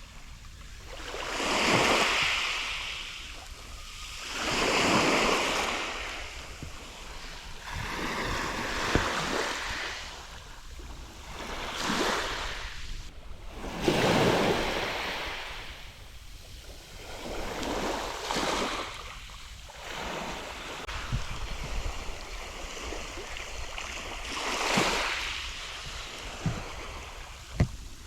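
Small waves breaking and washing up a sandy beach, one swell of surf hiss after another every few seconds, with a low wind rumble on the microphone.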